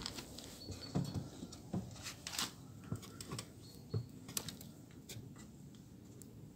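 Faint, irregular taps and knocks from someone moving about and handling a phone camera in an old wooden barn loft, over a low rumble.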